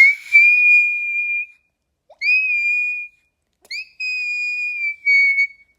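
A voice forced up to very high, whistle-like notes, continuing a do-re-mi singing scale. Three long, thin tones, each scooping up into a held pitch; the last one dips slightly lower near the end.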